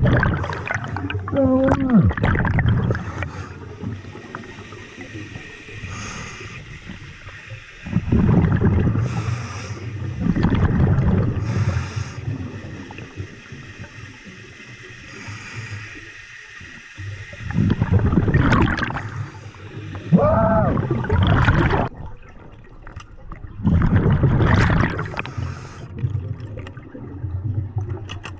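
Scuba diver breathing underwater through a regulator: inhalations and the gurgling rush of exhaled bubbles come in surges every few seconds, with a couple of short, pitched, voice-like tones among them.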